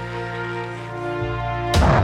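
Background music of held chords, broken about three-quarters of the way through by a sudden loud hit whose low tone falls in pitch.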